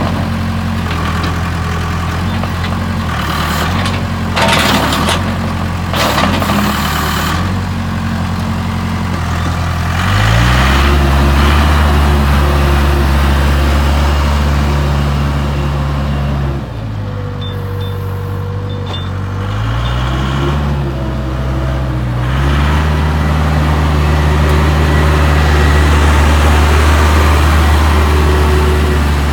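Case 580 Super K backhoe's diesel engine running: idling, revved up about a third of the way through, dropping back to idle briefly and revving up again to run steadily. A few short bursts of noise sound over the idle near the start.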